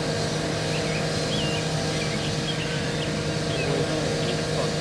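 Whelen WPS-4004 rotating electronic outdoor warning siren sounding a steady tone during a test. Birds chirp faintly over it.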